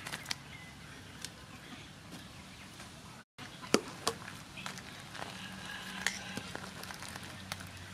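Soup bubbling at a boil in an aluminium pot, with sharp clicks and knocks of a metal ladle against the pot as it is stirred. The sound cuts out for an instant a little past three seconds in.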